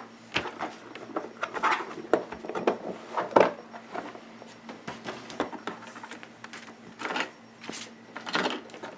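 Boxed airsoft pistol and its packaging being handled and opened: irregular clicks, light knocks, scrapes and rustles, with the loudest knock about three and a half seconds in.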